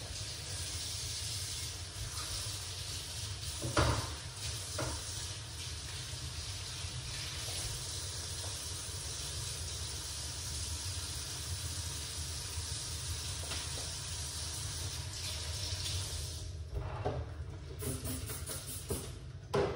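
Kitchen tap running steadily into a sink, with a couple of light knocks about four seconds in. The water stops near the end, followed by a few knocks of handling.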